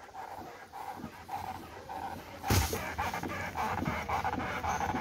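Front telescopic fork of a Honda Vario 160 scooter squeaking, a short 'ngek' about twice a second, as the front end is pumped up and down with the front brake held, with a louder thump about two and a half seconds in. The owner cannot tell whether the squeak is normal or a sign of a fault.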